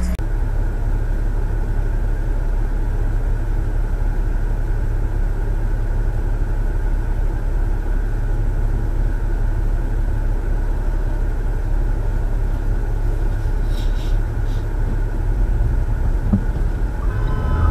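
Steady low rumble of a car's engine and road noise inside the cabin, picked up by a dashcam microphone, unchanging throughout.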